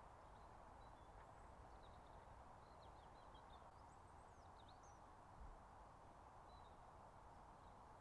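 Near silence: a faint steady hiss with a few faint bird chirps in the middle.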